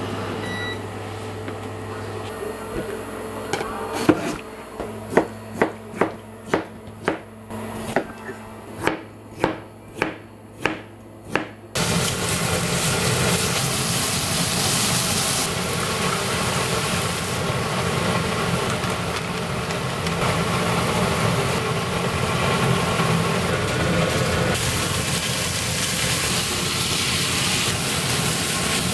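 About fourteen sharp, evenly spaced knocks, roughly two a second, then about twelve seconds in a frying pan starts sizzling loudly and keeps on as thinly sliced beef, then bamboo shoots and snow peas, are stir-fried with wooden chopsticks.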